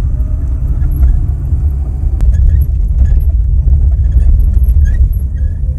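Road noise inside a moving 2019 Lada Granta FL: a steady low rumble, with faint short squeaks repeating through it. The owner traces the squeak to the handbrake cable rubbing where its rubber grommet has slipped out of place.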